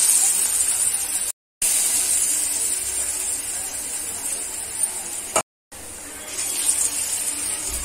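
Chana dal pakoras deep-frying in hot oil in a kadhai: a steady bubbling sizzle that cuts out briefly twice. It swells again about six and a half seconds in as another ball of batter is dropped into the oil.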